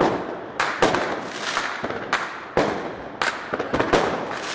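Fireworks exploding in quick, irregular succession: about seven sharp bangs in four seconds, each trailing off in a fading hiss.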